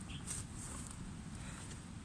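Faint low rumble with a few light clicks and small rustles.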